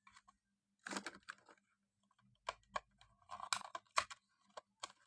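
Scattered clicks and light knocks as slim LED power supply units are handled and set down, a dozen or so irregular taps, the loudest about a second in and around three and a half to four seconds in.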